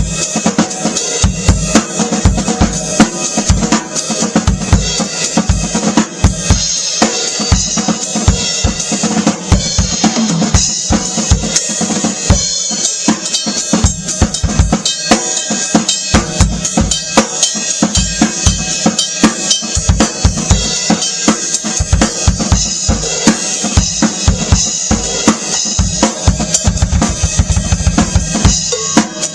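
Drum kit played continuously with bass drum and a Beatello Ace of Spades 14x8 basswood snare drum, including rimshots, hit after hit without a break.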